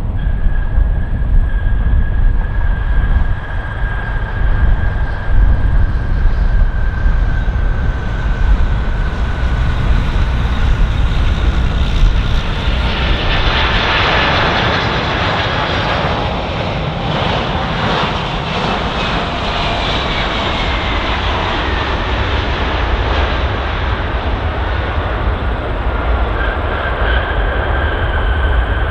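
Jet airliner on landing approach: a steady high engine whine over a deep rumble, swelling to a loud rush as it passes close about halfway through, then falling in pitch as it moves away. A new engine whine comes in near the end.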